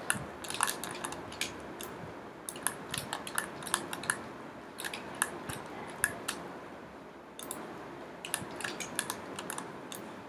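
Computer mouse and keyboard clicking in irregular quick clusters of a few clicks each, with short pauses between clusters.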